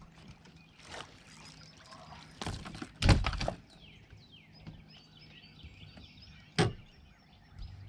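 Landing net holding a freshly caught blue catfish thumping onto the boat deck, several thuds about three seconds in, then one sharp knock near the end. Birds chirp faintly throughout.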